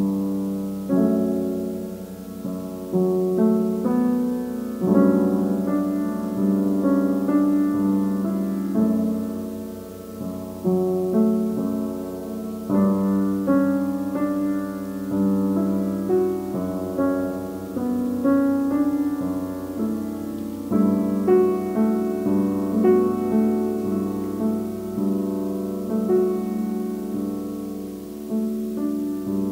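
Improvised piano playing: single notes and chords struck at an unhurried pace, each one ringing out and fading.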